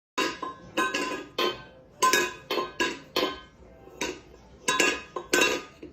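A cat knocking its empty food bowl about, a dozen or so sharp clattering knocks, each ringing briefly, in irregular runs with a pause about halfway through: the cat's way of asking to be fed.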